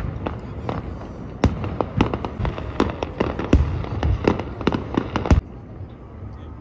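Fireworks display: a rapid series of aerial shells bursting with sharp bangs and crackles, cutting off suddenly about five seconds in.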